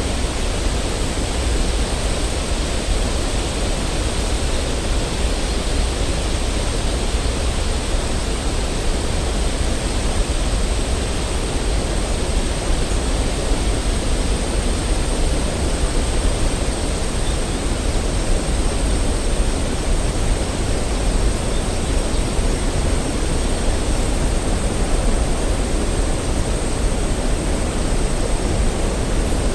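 Waterfall: a steady, unbroken rush of falling water, heaviest in the low end, with a thin steady high tone running underneath.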